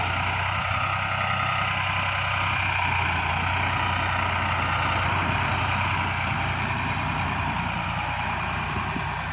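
A Farmtrac 60 tractor's diesel engine running steadily while it drives a rotavator through the soil: a steady low hum with a higher, slightly wavering whine above it.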